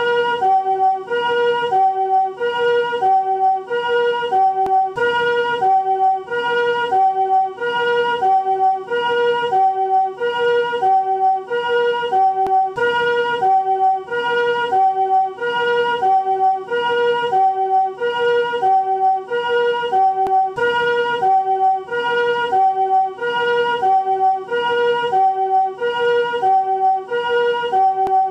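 Japanese ambulance siren in its newest chord (harmonic) version: two-tone pee-paw, alternating a higher and a lower chord about every half second in an even, unbroken cycle.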